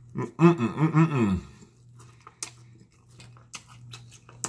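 A person chewing a mouthful of BBQ bologna sandwich on toasted bread. For about the first second and a half there is a muffled voiced sound through the full mouth, then quieter wet chewing and lip smacks.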